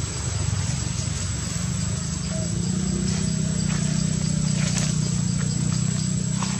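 Steady low hum that grows stronger about two seconds in, like a distant engine, with a faint steady high whine and a few soft crackles of dry leaves underfoot.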